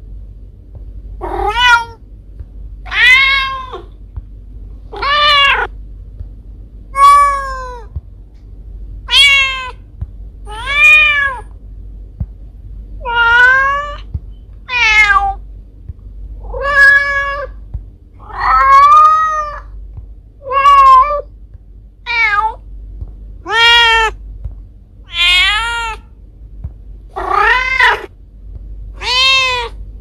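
Mother cat meowing over and over, about one meow every two seconds, each rising then falling in pitch: a mother cat calling for her kittens.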